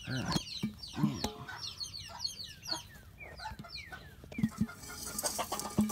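A brood of chicks peeping: many short, high, falling cheeps in quick succession, with a few low clucks from adult hens mixed in.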